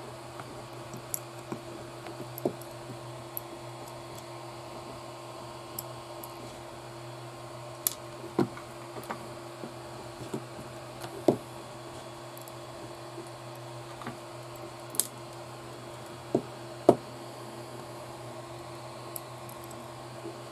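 Irregular small clicks and knocks of RC kit parts and tools being handled and set down on a workbench during assembly, with two louder knocks partway through, over a steady background hum.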